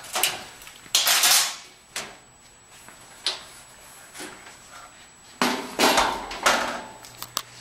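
Sheet-metal clunks and rattles from the steel top lid and panels of a Speed Queen washer extractor being opened and handled: a loud rattle about a second in, a couple of single knocks, then a longer clatter near the end and two sharp clicks.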